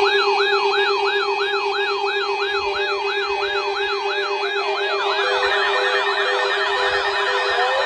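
Electronic siren in a rapid yelp, its pitch sweeping up and down about three times a second over a steady lower tone. A second siren layer joins about five seconds in, and a slower wail starts near the end. It sounds in place of the weather radio's alert tone.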